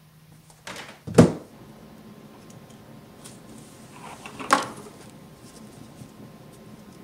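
Two sharp snaps or clicks about three seconds apart, the second followed by a short rustle: small objects being handled close up.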